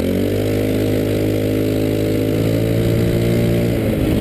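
Small go-kart engine running hard at a steady high pitch after pulling away, easing off slightly near the end.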